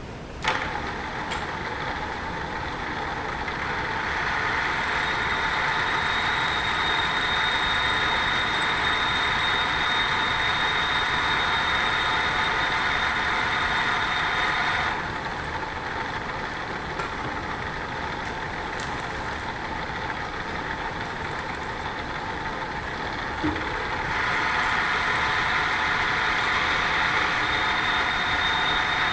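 Drill press running with a steady whine, with a sharp click about half a second in. The sound drops in level for about nine seconds in the middle, then comes back up.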